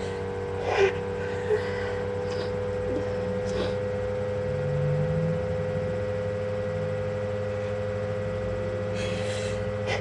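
A person sniffing and breathing while holding back a sneeze: short sharp sniffs about a second in, again half a second later and at about three and a half seconds, and a longer breath in near the end. Under it runs a steady low hum.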